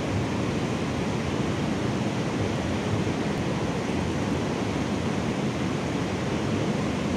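Steady rush of a shallow river running over rocks and riffles, an even hiss of flowing water with no breaks.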